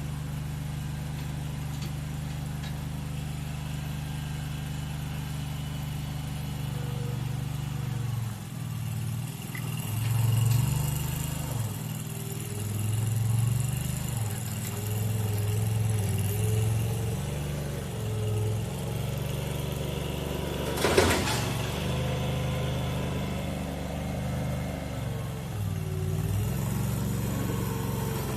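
Mini skid steer's small engine running, steady at first, then dipping and rising in pitch as it works under changing load while the machine is driven. A single sharp metallic clank stands out about three quarters of the way through.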